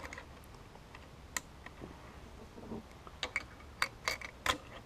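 Sharp metallic clicks of cartridges being pushed by finger, one at a time, into the Lebel Model 1886/93 rifle's tube magazine through its open action. There is a single click about a second in, then a quick run of clicks in the last two seconds.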